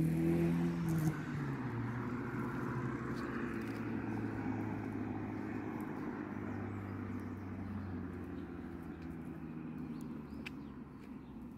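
A car engine's steady hum, dropping slightly in pitch in the first second, then slowly fading away as the vehicle moves off. A few sharp clicks near the end.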